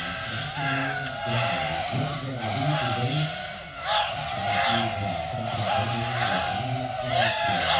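Racing drones' motors whining in a race, the pitch surging as the quads throttle up, about four seconds in and again near the end.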